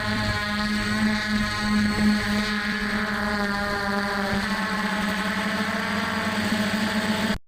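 F450 quadcopter's brushless motors and stock propellers running steadily in flight: a hum with many overtones that wavers slightly as the throttle shifts. The sound cuts out abruptly right at the end.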